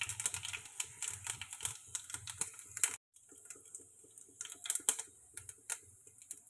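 Panch phoron seeds crackling and popping in hot mustard oil in a kadhai: a quick, irregular run of small pops, the spluttering that marks a tempering (tadka) ready for the next ingredient. After a brief break about three seconds in, the popping goes on more sparsely and softly.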